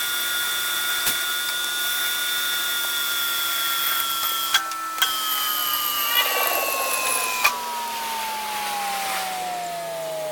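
Electric motor of a power tool or machine running with a high whine whose pitch sags slowly, then falls faster near the end as it winds down. A few sharp knocks come in the middle.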